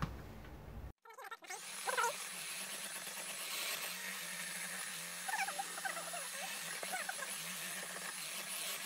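Electric hand mixer starting about a second in and running steadily with a motor hum as its beaters whip cake batter in a stainless steel bowl. A few short squeaks come through along the way.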